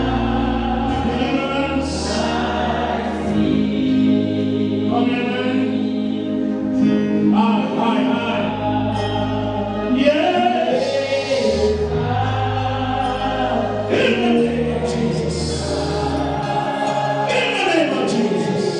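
Gospel singing by a church choir over a live band, with a bass line that moves to a new note every couple of seconds.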